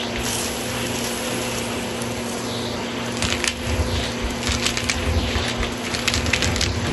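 Cordless stick vacuum running with a steady motor hum, crackling and clicking as dry lentils and small grains are sucked up through its floor head. The clicks become dense from about three seconds in.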